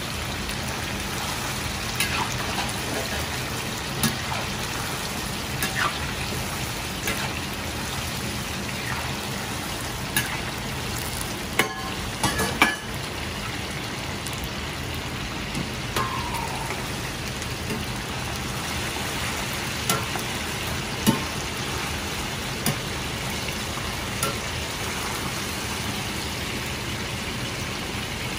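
Breaded chicken pieces deep-frying in a wok full of oil: a steady sizzling crackle. Now and then come short sharp metal clinks of a ladle and strainer against the wok, a cluster of the loudest a little before halfway.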